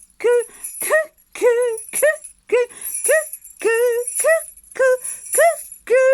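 A voice calling a two-note 'cuckoo' over and over, about twice a second, the second note short and rising, ending on one longer held note near the end, while jingle bells are shaken throughout.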